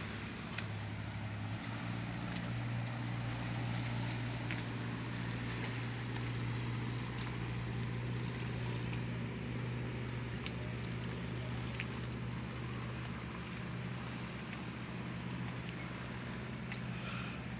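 Outrigger boat's engine running steadily at an even pitch, with a hiss of wind and water over it.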